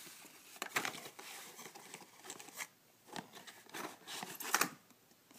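Cardboard and plastic packaging of a CPU retail box being handled: irregular rustling and crinkling as the stock heatsink and the box's paper inserts are taken out, the loudest rustle about four and a half seconds in.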